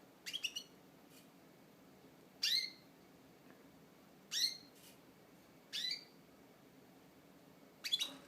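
Pet canary giving short, sharp chirps about every one and a half to two seconds: a quick cluster of three at the start, single chirps in between, and a double chirp near the end. These are call notes, not full song.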